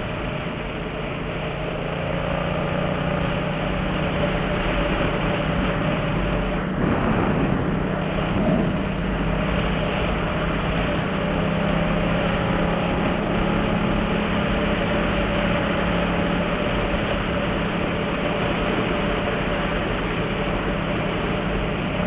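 Yamaha MT-07's parallel-twin engine breathing through an aftermarket Jeskap GP Carbon exhaust, running steadily at cruising speed in sixth gear.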